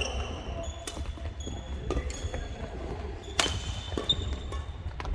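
Badminton rally: sharp racket strikes on the shuttlecock about once a second, with short high squeaks of court shoes on the hall floor.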